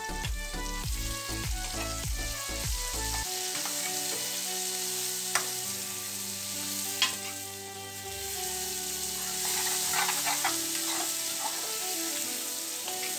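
Diced vegetables sizzling in oil in a steel kadhai as they are stirred with a metal spoon, with a few sharp clicks of the spoon against the pan around the middle.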